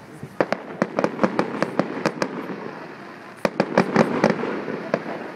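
Fireworks bursting in quick strings of sharp bangs and crackles: one volley, then a second after about a second's pause.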